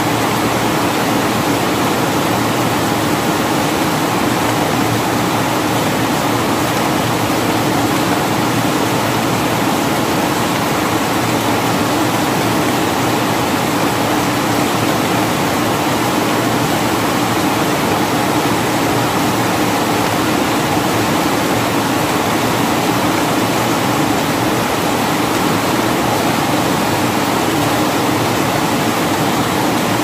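Heavy rain falling steadily.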